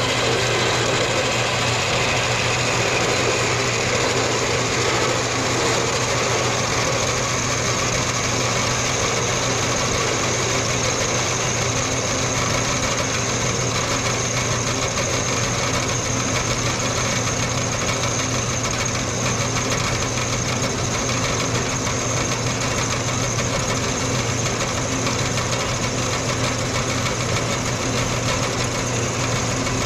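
Small horizontal metal-cutting bandsaw running steadily, its blade sawing through a short round metal bar clamped in the vise, with a steady low motor hum and a high whine.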